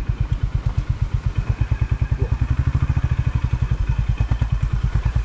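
Honda CB350RS motorcycle's air-cooled single-cylinder engine running with an even beat of about a dozen pulses a second while the bike rolls slowly.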